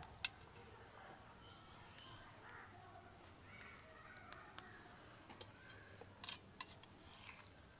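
Quiet knife work on a steel plate: a few sharp clicks as the knife blade touches the metal while cutting a soft, set slab of lentil-papaya dhoka into squares. There is one click about a quarter-second in and a short cluster a little after six seconds.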